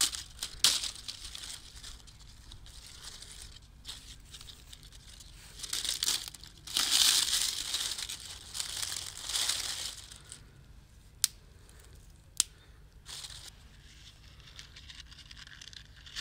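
Crinkling and tearing handling noises during food preparation, loudest in a long stretch in the middle, followed by two sharp clicks.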